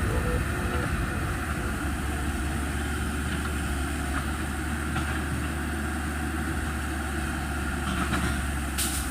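Excavator engine running steadily at a low, even pitch.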